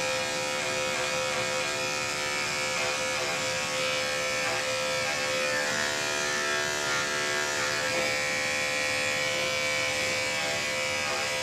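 Andis five-speed electric dog grooming clipper running with a steady buzz as it shears through a dog's curly coat on the legs.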